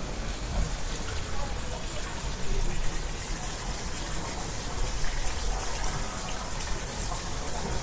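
Fountain water splashing and gushing steadily.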